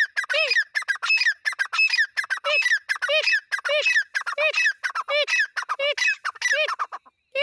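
Grey francolins calling: a fast, unbroken run of loud, harsh repeated notes from more than one bird overlapping, with a falling note about every two-thirds of a second. The calling breaks off just before the end.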